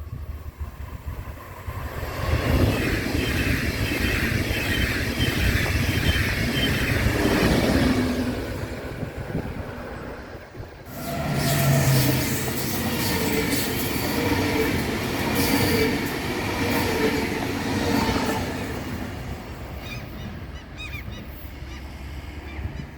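High-speed passenger train passing at speed: a loud rushing and rumbling of wheels on rail. It builds about two seconds in, drops briefly near the middle, swells again and fades away near the end.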